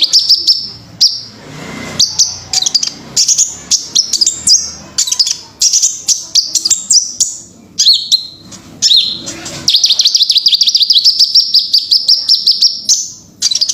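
Kolibri Ninja sunbird singing: rapid, high-pitched trills of quickly repeated notes broken by short pauses and a few sharp chips, ending in a long unbroken trill over the last few seconds.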